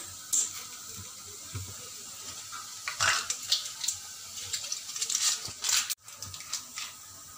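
Steady sizzling hiss of chopped onions frying in oil in a kadhai, with a few light clinks and scrapes of utensils. A brief drop-out about six seconds in.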